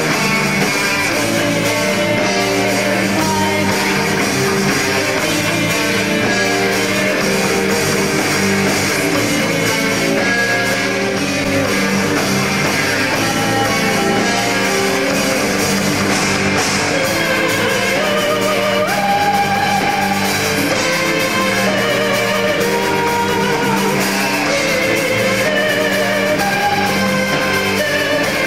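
Live rock band playing a song: electric guitar, drum kit and keyboard together, with some singing.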